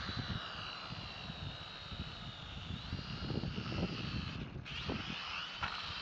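Small RC quadcopter's electric motors and propellers whining, several high tones gliding up and down as the throttle changes. The whine cuts out briefly about four and a half seconds in, then picks up again. Wind rumbles on the microphone underneath.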